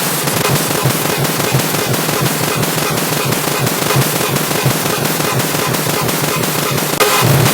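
Car horn beeps stacked on top of each other so many times and so heavily distorted that they merge into a loud, dense crackling din. It drops out for an instant about seven seconds in and starts again.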